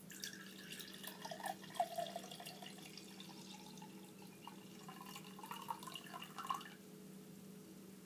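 Root beer poured from a glass bottle into a glass mug: bubbly splashing as the liquid lands and fills the mug, the pitch climbing as it fills, and the pour stops about seven seconds in.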